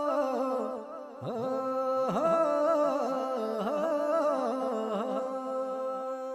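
Background music: a melody of bending, ornamented notes over a steady held drone.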